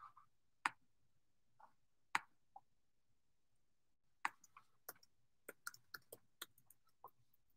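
Scattered light, sharp clicks and taps close by, with a quick irregular run of them about five seconds in.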